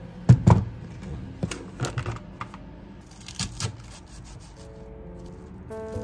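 A few sharp knocks and clatters of small hard objects being handled: two loud ones about half a second in, then scattered lighter clicks. Soft background music comes in near the end.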